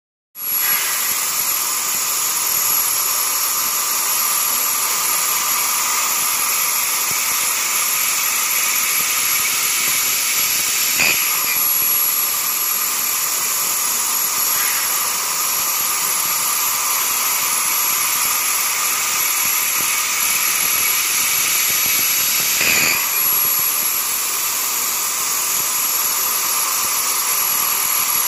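CNC machining centre plunge milling a slot in stainless steel with a 32 mm four-insert plunge mill: a steady, loud cutting noise with a constant high whine. Twice, about twelve seconds apart, the noise briefly changes.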